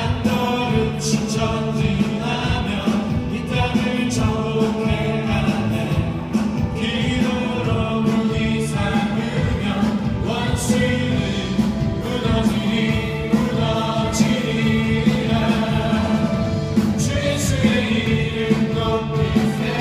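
Worship singers and congregation singing a praise song together with band and piano accompaniment, the voices blending like a choir in a large hall.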